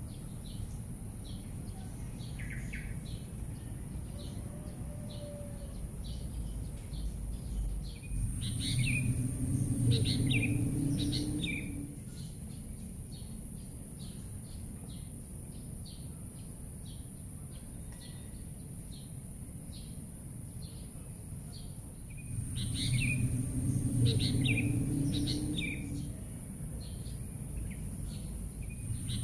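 Small birds chirping over and over at dawn, over a steady high hiss. Twice, about eight seconds in and again past twenty seconds, a louder low rumble swells for about four seconds while the chirping thickens.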